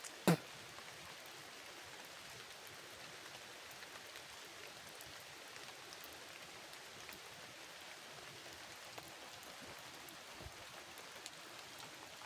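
Steady light rain falling on foliage, a faint even hiss with scattered small ticks of drops. One sharp knock about a third of a second in.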